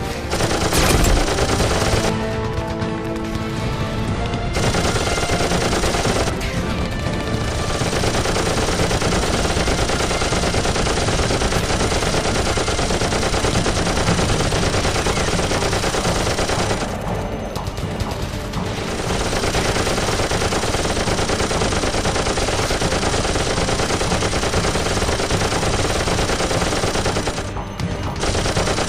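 Film battle sound effects: continuous heavy machine-gun fire, a dense unbroken rattle that eases briefly a few times, at about two, seventeen and twenty-seven seconds in.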